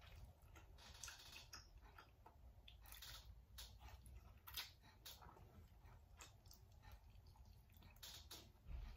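Faint mouth sounds of a person eating instant noodles with chopsticks: wet chewing and slurping, made of many small clicks, with one louder click about halfway through.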